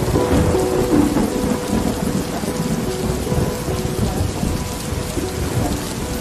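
Steady rain with a low rolling rumble of thunder, under soft background music of long held notes.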